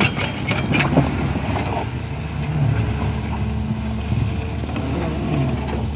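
Tracked hydraulic excavator's diesel engine running as the boom swings and the bucket moves. There are a few sharp knocks in the first second, and the drone swells a little now and then as the hydraulics take load.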